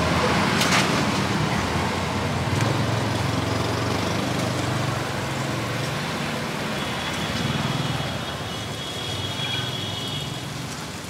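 Road traffic running past: a steady rumble with a low engine hum that swells and eases, dropping a little near the end.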